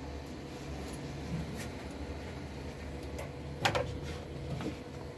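Light clicks and a sharper knock about three and a half seconds in, from hands handling parts and panels of an open combi boiler, over a steady low hum.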